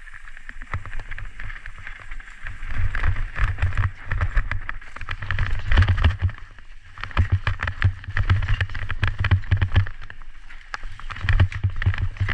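Kona Process 153 mountain bike descending a dirt forest trail: tyres rumbling over the ground, with dense rattling and clattering from the bike over roots and bumps, and wind buffeting the microphone in pulsing gusts.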